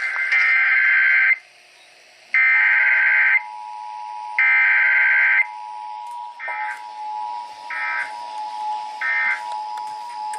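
Emergency Alert System signal ahead of a flash flood warning. Three one-second bursts of SAME header data come about a second apart. The steady two-tone attention signal starts about two seconds in and holds, with three shorter data bursts over it later on.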